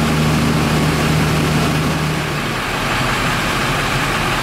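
Fire engine running at a steady pitch over a broad hiss; about halfway through the engine hum changes to a lower, pulsing one.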